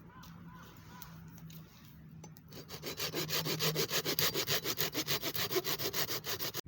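Hand saw cutting through wood in quick, even back-and-forth strokes. It starts about two and a half seconds in and cuts off suddenly at the end.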